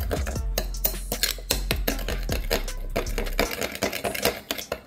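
A spoon stirring a thick sauce in a small ceramic bowl, clinking and scraping against the bowl over and over, with background music.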